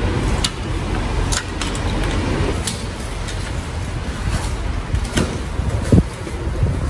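Sharp metal clicks and knocks from a magnet-fishing magnet and a rusty iron find being handled, the strongest a thump about six seconds in, over a steady low rumble.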